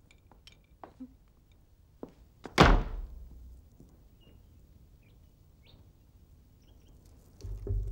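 A single heavy thunk about two and a half seconds in, with a low tail, among a few faint small clicks. Near the end a low rumbling drone begins.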